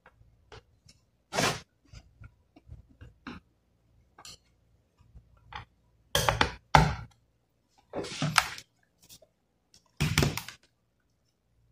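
Laptop's plastic case handled on a desk: light taps and clicks, then several louder knocks and short scrapes as it is pressed, slid and turned around.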